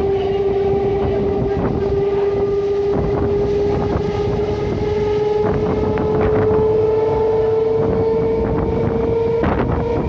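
Traction motors of an old Indian Railways suburban EMU train whining while running, the whine slowly rising in pitch as the train gathers speed. Underneath is the rumble and wind noise of the moving coach, with a few sharp clacks from the wheels on the track.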